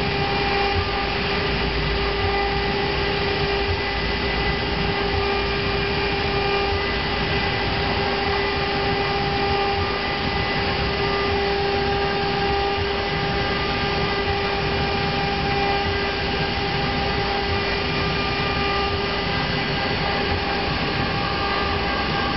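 BMG-1325-2 two-head CNC router, both spindles running and milling rectangles into a wooden board: a steady high whine over the rushing noise of the cut, unchanging throughout.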